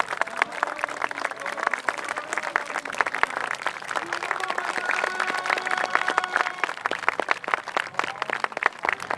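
Crowd applauding: many hands clapping, dense and uneven, with a few voices calling out over it about halfway through.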